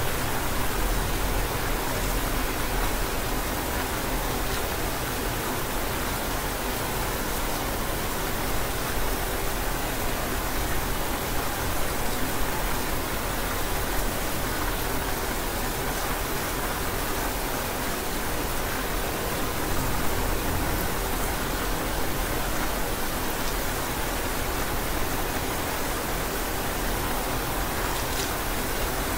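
Steady rain falling, an even hiss with a few faint drop clicks.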